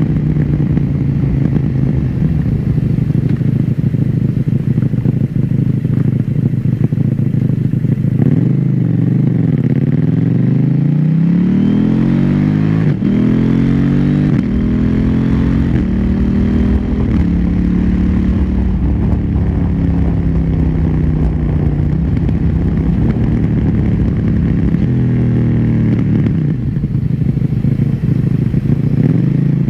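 KTM 790 Duke's parallel-twin engine on its stock exhaust, running steadily, then easing off and accelerating hard, with one quick upshift about halfway through that cuts the pitch cleanly before it climbs again. It then slows on a long falling note and picks up again near the end.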